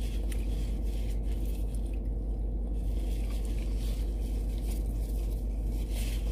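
Soft chewing and small food-handling sounds over a steady low hum.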